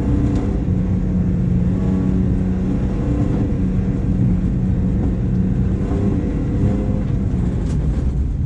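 BMW 328i rally car's engine pulling at fairly steady revs, heard from inside the cabin, over the rumble of tyres on a gravel road.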